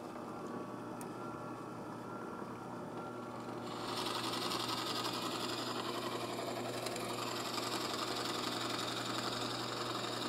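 Delta benchtop drill press motor running steadily. About four seconds in, the Forstner bit starts cutting into a small block of wood, adding a steady hiss of cutting over the motor hum.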